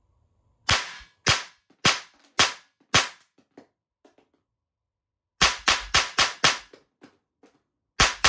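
Tanaka Works SIG P226 Mk25 Evo2 blowback model gun firing cap-loaded Evolution2 cartridges: five sharp pops about 0.6 s apart, a few faint clicks, then a quick string of six shots at about four a second, and two more shots near the end.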